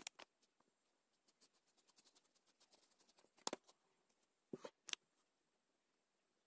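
Faint light taps and clicks from a marker pen and paper scraps being handled on a tabletop: a quick run of soft ticks, then a few sharper clicks about three and a half and four and a half to five seconds in.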